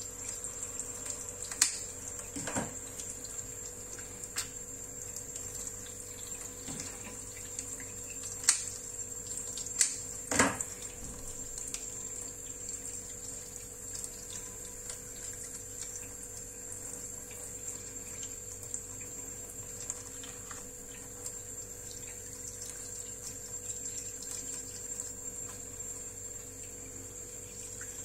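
Fish being scaled and cleaned by hand: a few sharp knocks and taps of the scaler and knife in the first ten seconds or so, with faint water sounds of the fish being handled and rinsed. A steady low hum and a thin high whine run underneath.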